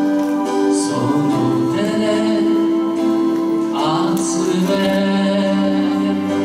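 Male singer performing a slow Japanese ballad into a microphone over a karaoke backing track, holding one long note for about two seconds partway through.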